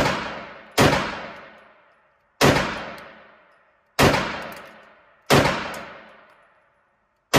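Custom Glock 19X 9mm pistol with a Radian Ramjet compensator, fired at a steady slow pace in an indoor range. There are five shots one to two seconds apart and a sixth at the very end, each sharp report trailing off in about a second of echo off the range walls.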